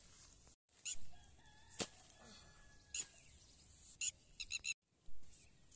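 Metal hoe blade chopping into wet mud and soil, several dull strikes about a second apart. A few quick high chirps from birds come near the end.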